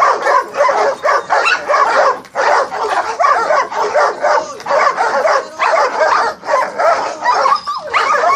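Guard dogs, including a German shepherd, barking fast and without pause, one bark after another.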